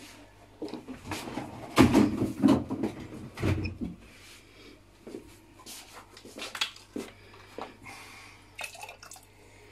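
Milk being poured from a carton into the steel mixing bowl of a Thermomix, heard as splashes and glugs mixed with knocks and crinkles of the carton being handled, loudest about two to four seconds in.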